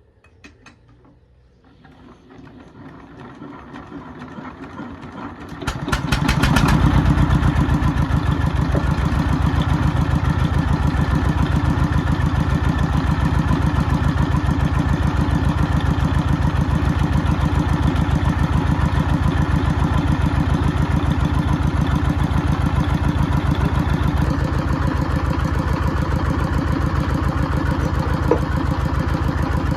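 An engine starts up and builds over about six seconds, then runs steadily with an even, rapid pulsing beat.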